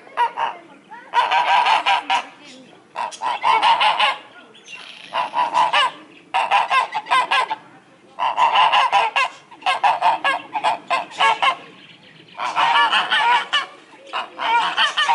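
Domestic guard geese honking in about eight loud bouts of rapid, repeated calls with short pauses between them.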